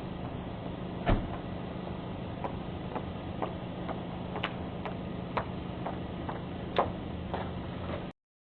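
Scattered sharp taps and knocks over a steady low hum, heard through a Ring doorbell camera's microphone, with one louder knock about a second in. The audio cuts out abruptly just before the end.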